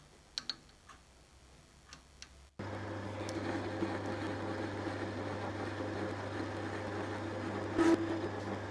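A few faint clicks, then about two and a half seconds in a metal-turning lathe starts up suddenly and runs with a steady motor hum while taking a light facing cut to clean up the outer face of the micrometer body, with one brief louder cutting sound near the end.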